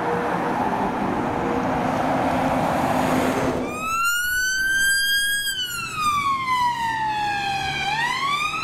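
An ambulance drives past with engine and tyre noise. About three and a half seconds in, an ambulance response car's electronic wail siren starts, sweeping slowly up, then down, then up again.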